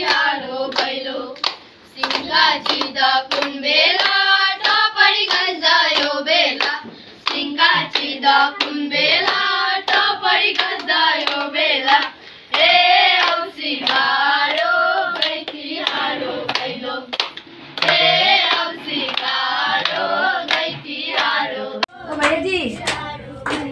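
A group of women and girls singing a song together in unison, clapping their hands along to it, until the singing breaks off near the end.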